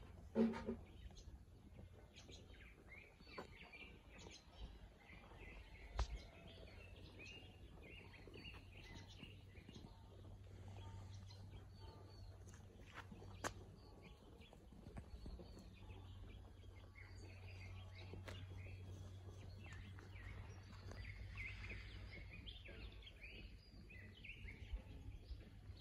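Faint outdoor ambience with small birds chirping on and off throughout, over a low steady hum. A brief louder sound comes just after the start, and a few sharp clicks follow later.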